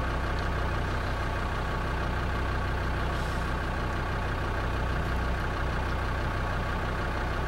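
An off-road vehicle's engine idling, a steady low hum that stays even throughout.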